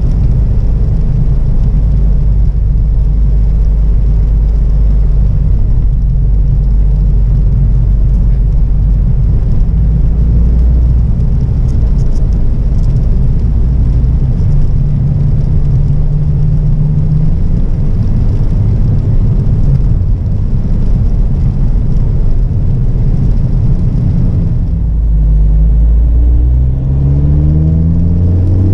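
Volkswagen Mk6 GTI's turbocharged 2.0-litre four-cylinder engine and road noise heard from inside the cabin while driving: a steady low drone. Near the end the engine note rises as the car accelerates under turbo boost.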